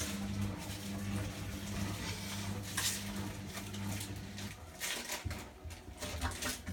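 Front-loading washing machine running with its drum turning: a steady low motor hum that drops out for a moment about four and a half seconds in, with a few light knocks.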